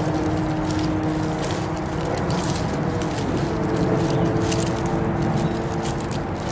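Fresh leafy branches rustling and crackling as they are handled and wrapped tight with yarn, over a steady low rumble with a faint hum.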